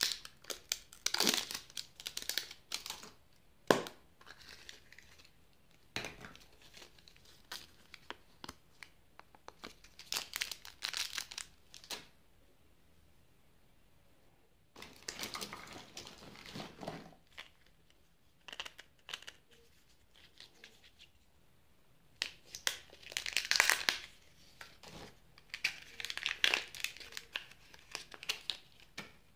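Plastic surprise-egg wrappers crinkling and tearing as they are peeled off by hand, in several bursts of a second or two, with a few sharp clicks of plastic capsules and toy parts between them.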